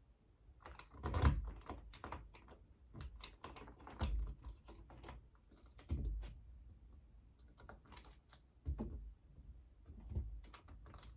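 Irregular light clicks and knocks of sliding-door lock hardware being handled and adjusted, with a few louder knocks scattered through.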